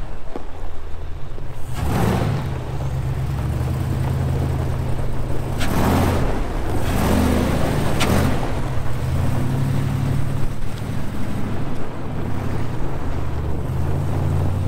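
Large custom off-road wrecker's engine running through Flowmaster HP2 mufflers as the truck is driven slowly across a gravel yard, the engine note swelling and shifting a few times.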